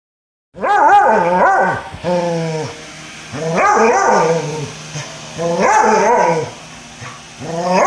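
Dog giving a series of long, drawn-out bark-howls, each rising and then falling in pitch, about one every two seconds.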